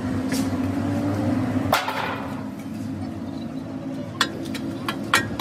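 A metal hand tool striking and scraping inside a cracked truck rear axle housing while it picks out caked grease. There is one loud ringing knock about two seconds in, then two light sharp clinks near the end, over a steady low hum.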